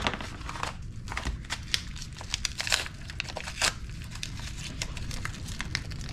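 Plastic packaging crinkling and rustling in short, irregular bursts as small nitrous kit parts are pulled out of their bags by hand.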